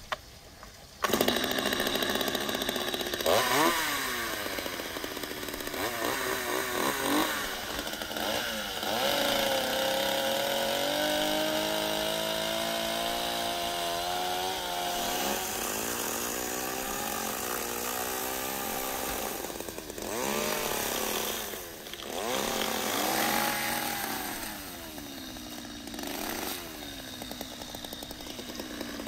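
A Stihl two-stroke chainsaw starts about a second in, then runs and is revved up and down as it cuts through a rack of raw beef ribs. It holds a high, slowly rising pitch mid-cut and drops back to lower revs a few times.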